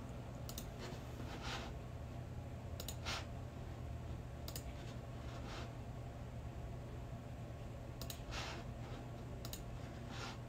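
A few scattered light clicks, some in quick pairs, with short soft swishing sounds in between, over a low steady hum.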